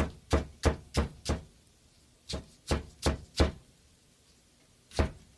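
Cleaver chopping stacked daikon strips on a wooden cutting board. Sharp knocks come about three a second: a run of five, a short pause, a run of four, then one more stroke near the end.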